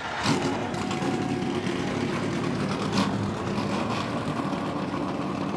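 NASCAR Xfinity Series stock car V8 firing up just after the start and then running at a steady idle, with one sharp accent about three seconds in.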